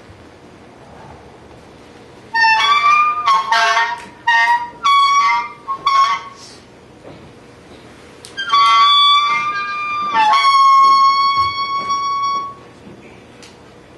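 Improvised music on a single pitched, wind-like instrument: short broken phrases with bending pitch from about two to six seconds in, then after a pause two longer held notes from about eight and a half seconds in, separated by quiet gaps.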